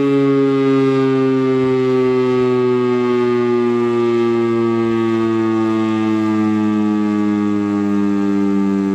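Federal Signal STL-10 7-port outdoor warning siren winding down after its alert: one loud, many-toned wail whose pitch falls slowly and steadily as the rotor coasts to a stop.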